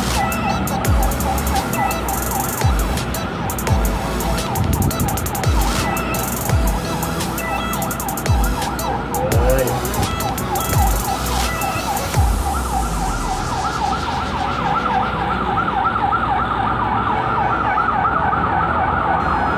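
Background dance music with a steady beat and a fast, repeating siren-like warble. About twelve seconds in, the beat drops out and the high end sweeps away, leaving the siren warble on its own.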